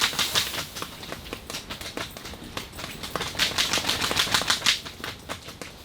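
Fabric of a pop-up ice-fishing hut flapping and snapping in gusty wind: a rapid, irregular clatter of sharp clicks, thickest a little past the middle.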